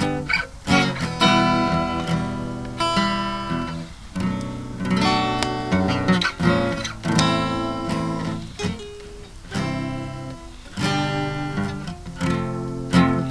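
Acoustic guitar strumming chords, each struck chord ringing out and fading before the next.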